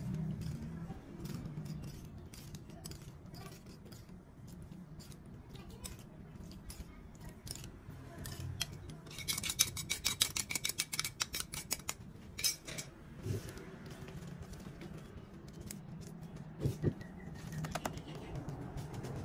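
Snail shells clicking and clattering against each other and the metal pot as they are tossed by hand to mix in seasoning, with a rapid run of clicks about halfway through.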